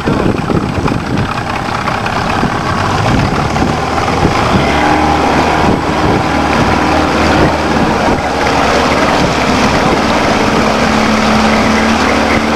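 A boat engine running on the water. It is rough and uneven at first, then settles into a steady note after a few seconds, and the pitch climbs a little near the end.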